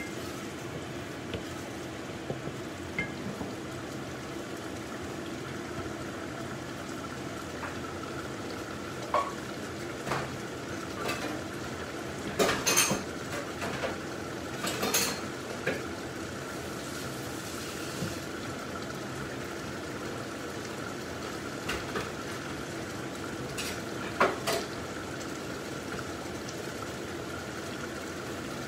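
Kitchen sounds: a steady hum while a pot of water steams on the stove, broken by a few scattered clinks and knocks of cookware and utensils, most of them about halfway through.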